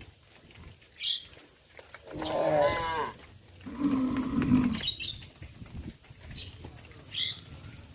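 Cattle mooing twice: a higher, wavering call about two seconds in, then a lower, steadier moo about a second later. Birds chirp briefly several times.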